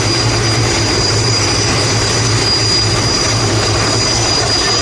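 Military transport helicopter hovering overhead, its turbine engines and rotor running steadily: a high whine over a low, wavering drone.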